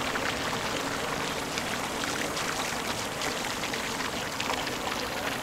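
Harbour water lapping against the quay and moored boats: a steady watery wash with small splashes throughout.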